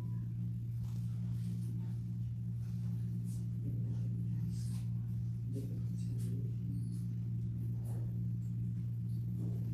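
A steady low hum runs throughout, with soft scattered clicks and quiet murmured voices around the middle.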